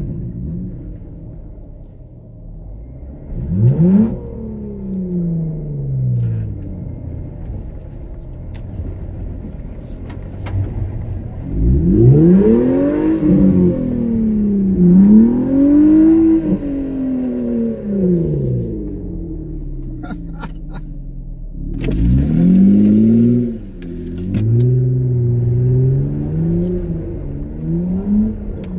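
Jeep Wrangler JKU's V6 engine revving up and down in several swells as it pulls through deep mud ruts, with a few short knocks.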